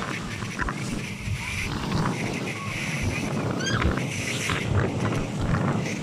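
Wind buffeting the microphone over the rushing wake of a ship. A few short, high calls are heard about halfway through.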